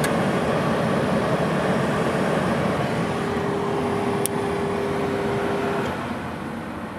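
Chevrolet Impala's heater blower fan running with a steady rush of air and a light hum, easing down near the end. A sharp click about four seconds in.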